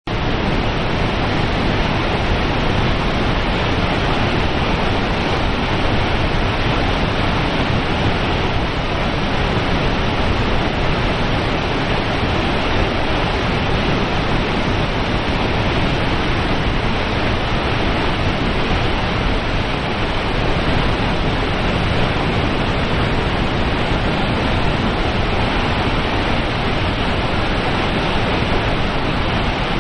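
Steady, loud rushing of Nevada Fall: an even, unbroken wash of falling water.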